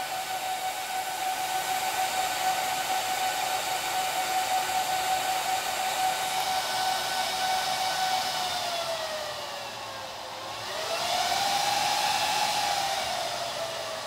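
The fan bank of an HPE ProLiant DL380p Gen8 server running fast with a steady whine. About eight seconds in it winds down in pitch and loudness, briefly spins back up around eleven seconds, then settles at a lower speed. This is the fans dropping from full boot speed as the server comes out of POST.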